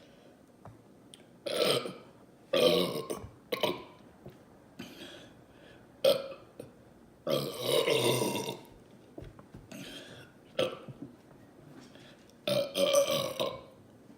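A woman belching loudly and repeatedly after gulping Coca-Cola, bringing up the soda's carbonation gas: a series of about seven burps with short pauses between, one drawn out for over a second.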